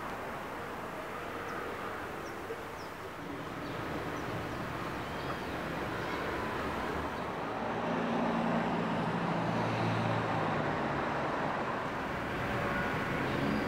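Outdoor ambience with a steady hum of distant traffic. A vehicle engine runs a little louder from about eight to eleven seconds in, and a few faint high chirps come in the first few seconds.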